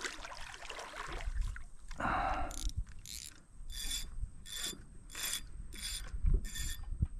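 A mechanical ratchet sounding in five short, evenly spaced bursts, about one every two-thirds of a second, in the second half, with a few dull knocks underneath.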